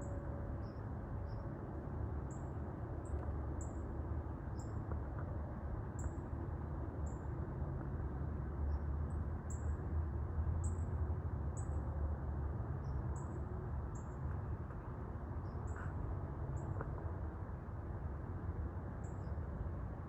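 Outdoor night ambience: a steady low rumble of background noise, with small, very high chirps repeating irregularly about once a second.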